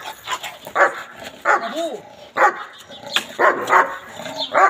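German shepherd-type dog barking fiercely on a leash, about seven sharp barks in quick succession, as it is worked up in aggression training.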